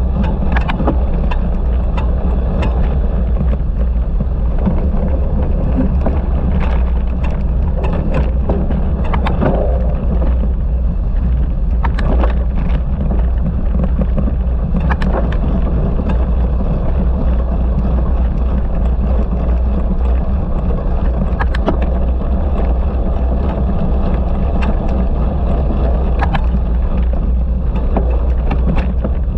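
Cyclocross bike ridden hard over rough ground: a steady, loud low rumble with wind on the microphone, broken by frequent short clicks and rattles.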